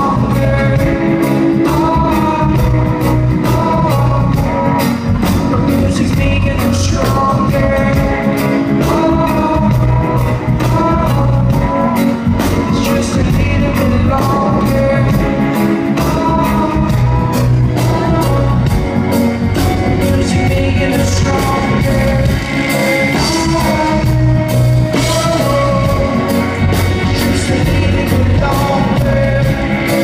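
Live reggae band playing a song with a singing voice over bass, drums and guitar, with a steady beat, amplified through the venue's PA.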